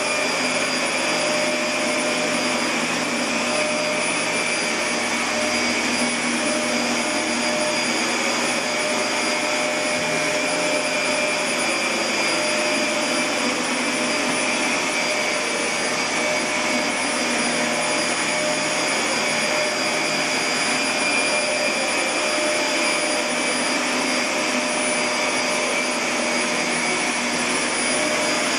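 A steady, unbroken mechanical whir and rush with a few faint held tones, from a running motor or fan.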